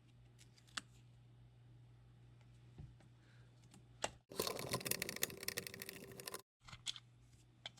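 Light scattered clicks over a faint low hum, then about two seconds of dense, rapid clicking and rattling from the toy megaphone's plastic housing being worked apart, stopping abruptly.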